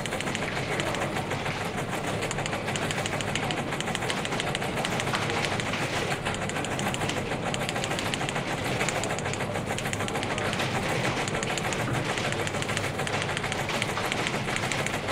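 Fast, continuous typewriter clatter: keys striking in a dense, unbroken run of clicks.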